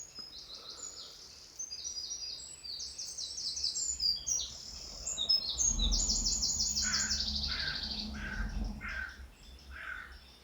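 Woodland birdsong: several birds singing quick, high chirps and trills, then a lower call repeated five times at an even pace in the second half.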